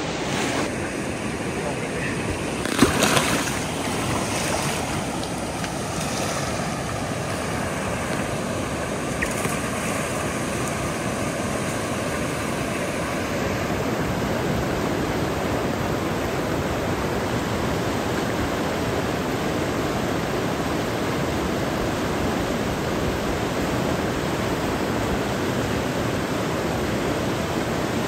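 Steady rushing of a fast river through whitewater rapids, with one brief louder noise about three seconds in.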